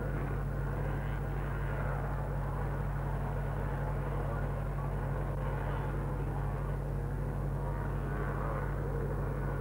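Motorcycle engines running at a distance, a blurred, shifting drone with no single machine standing out, over a steady low hum on the old recording.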